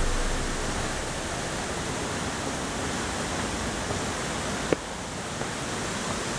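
Waterfall rushing in a steady, even wash of noise, with a single sharp click about three-quarters of the way through.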